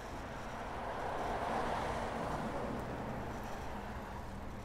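A passing motor vehicle: a rush of tyre and engine noise that swells to a peak about a second and a half in, then fades away.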